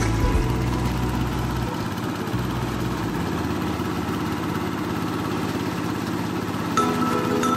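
Kubota single-cylinder diesel engine running steadily, driving a corn thresher as corn is fed into it. Background music fades out in the first couple of seconds and comes back near the end.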